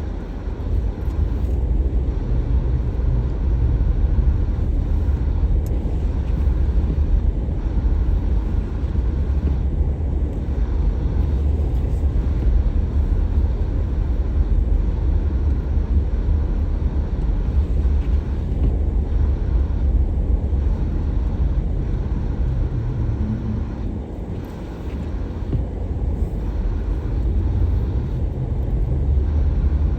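Steady low rumble of a car driving, road and engine noise, easing off briefly a little over three-quarters of the way through.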